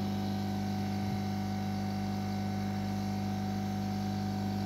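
Steady electrical hum from electronics repair bench equipment, a low mains hum with fainter steady tones above it and no change.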